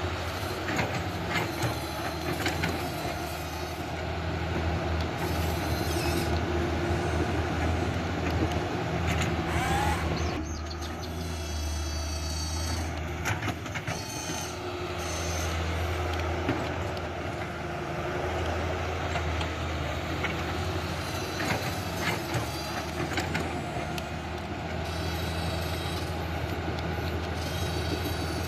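Huina RC excavator's small electric motors and gears running, with a steady low drone, high whines that come and go, and scattered clicks and knocks from the mechanism.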